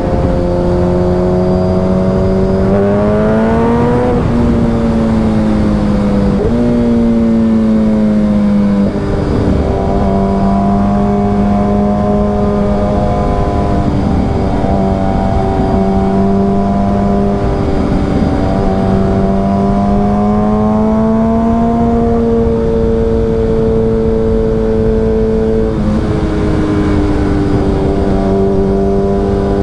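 Suzuki Hayabusa inline-four running at highway speed through a Brock's Alien Head aftermarket exhaust, heard from on the bike. The engine note climbs and drops several times with the throttle, over a steady rush of wind.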